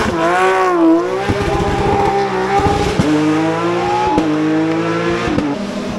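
Rally car engine at high revs, its pitch swooping and then climbing, changing at each gear shift, with a few sharp cracks.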